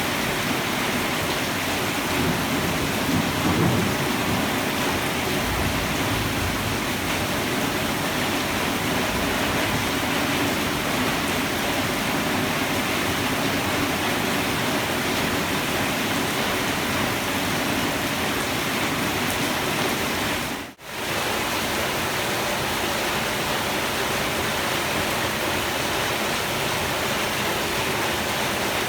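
Heavy tropical rain falling steadily, an even dense hiss. A brief low rumble comes about three seconds in, and the sound cuts out for a split second about twenty seconds in.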